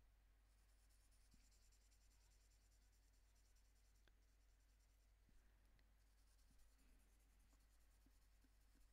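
Faint scratchy hiss of a Prismacolor Premier colored pencil shading on Fabriano toned paper, pausing briefly now and then, over a low steady hum.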